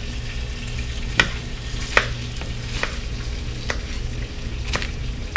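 Chef's knife slicing through a red onion and knocking on a wooden cutting board, about five sharp knocks roughly a second apart, over a steady background hiss.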